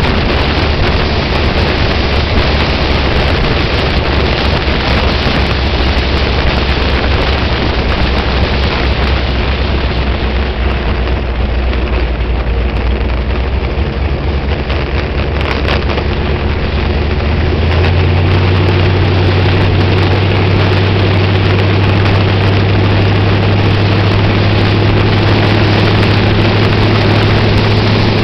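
Street-legal sprint car's fuel-injected V8, breathing through eight open velocity stacks, running steadily at low revs, then stepping up to a higher engine speed about two-thirds of the way through and holding there. Wind noise buffets the roll-cage-mounted camera microphone.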